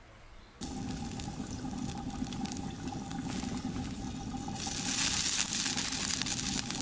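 Wood fire crackling and popping under a lidded cast-iron pot of pilaf as it steams, with a steady hiss. It starts suddenly about half a second in and grows louder and brighter near the end.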